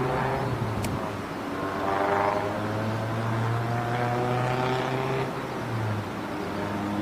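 Engine drone with a steady low hum and a slowly shifting pitch, like a motor passing by. A single sharp click about a second in.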